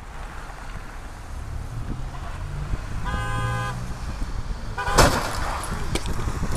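Street traffic rumble, then a car horn sounding for under a second about three seconds in, followed about two seconds later by a loud crash of a car collision with debris clattering after it.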